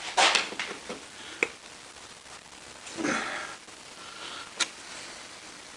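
Hand work on a lathe tailstock: two short rushing noises about three seconds apart, and two sharp, light clicks between and after them.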